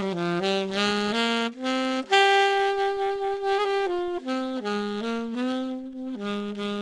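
Music: a slow solo melody on a single wind instrument, moving from one held note to the next.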